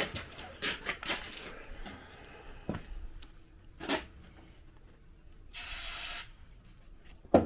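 Scattered light clicks and knocks of tools and parts being handled at a workbench, with one short hiss of air about six seconds in.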